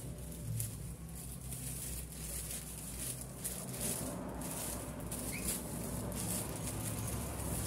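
Paper pattern rustling and sliding over cloth as it is handled and smoothed into place, in short repeated scrapes over a steady low hum.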